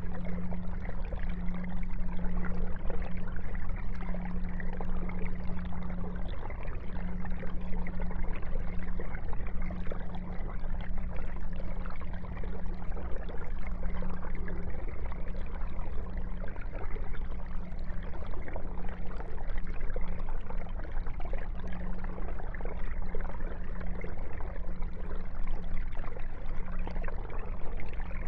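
Aquarium aeration running: a steady trickling, bubbling rush of water from a stream of air bubbles rising through the tank, over a steady low hum.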